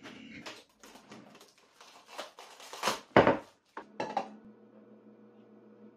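Kitchen handling noises: clattering and rustling as utensils are rummaged from a kitchen drawer, with one loud knock about three seconds in as something is set down on the table. A faint steady hum follows for the last couple of seconds.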